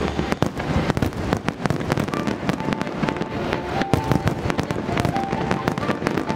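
Fireworks display: a rapid, irregular barrage of sharp bangs and crackling bursts from aerial shells and comets being fired in quick succession.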